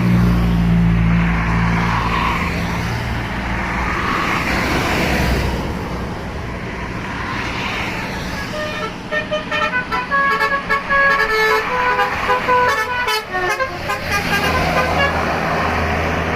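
Bus engine and road noise from a passing bus. About eight seconds in, a Basuri multi-tone 'telolet' bus horn plays a quick tune of short stepped notes for several seconds, then the engine noise carries on.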